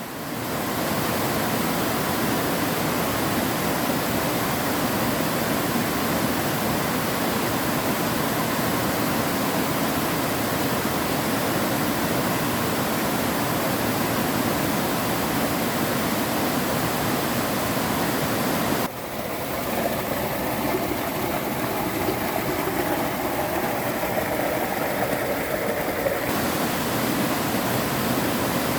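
Waterfall in a mountain stream, water rushing down in a steady dense noise. About two-thirds of the way through the sound abruptly turns duller for several seconds, then brightens again.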